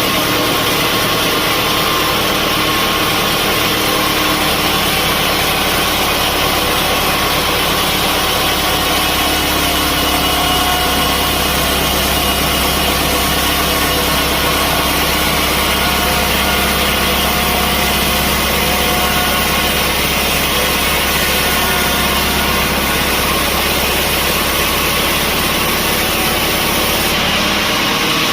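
Sawmill machinery running steadily: a constant engine-like drone with a low hum and hiss, holding level throughout.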